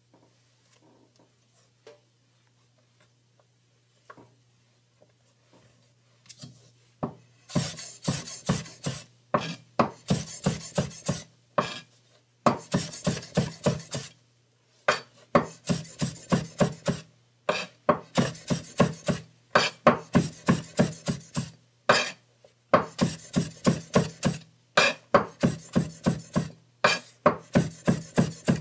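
A broad-bladed knife chops peeled ginger root on a wooden cutting board. It starts about seven seconds in, after a quiet stretch. The knife strikes the board in quick runs of about four strokes a second, with brief pauses between the runs.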